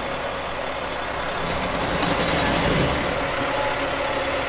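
Semi tractor's diesel engine running steadily as the truck creeps to slide the unlocked fifth wheel back along its rail, getting slightly louder around the middle.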